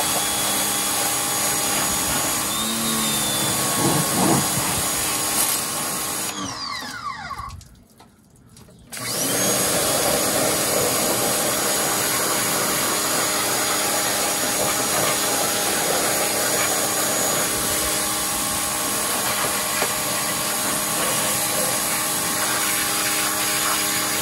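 Pressure washer running and spraying a water jet into an engine bay. About seven seconds in the motor winds down and stops for a second or so, then starts up again.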